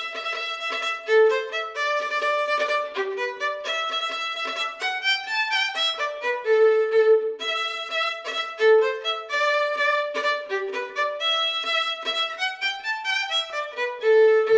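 Music: a solo violin playing a melody of short, quickly changing notes.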